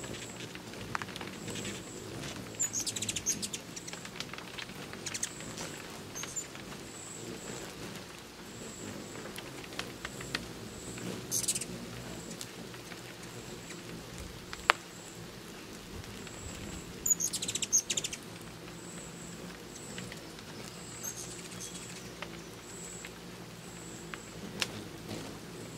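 Hummingbirds chattering in short clusters of high, sharp chips, several times, over a low steady hum.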